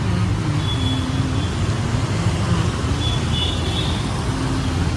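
Road traffic noise: vehicle engines running, with a steady low rumble and a faint hum that comes and goes.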